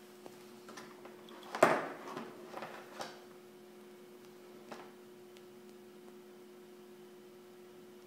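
Rubber power cords and plastic plugs knocking and rustling as they are handled and lifted from a table. The loudest knock comes about one and a half seconds in, followed by a few smaller ones, with one more a little later. A steady faint hum runs underneath.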